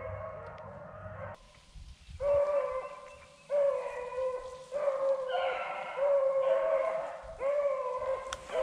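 Rabbit-hunting hounds baying on a rabbit's trail, drawn-out bawls repeating about once a second with several voices overlapping: the pack is running the rabbit.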